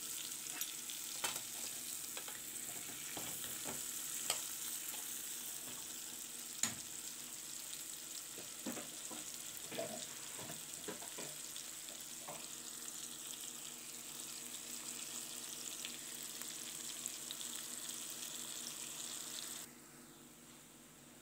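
Sliced onions and spices sizzling in hot oil in a metal sufuria as they fry down towards browning, with scattered clicks and scrapes of stirring against the pan. The sizzle cuts off suddenly near the end.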